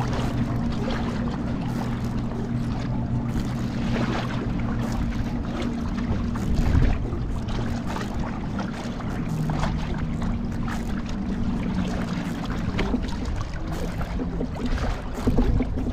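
Small boat motor running at a steady hum while the boat moves through choppy water, with water splashing against the hull now and then.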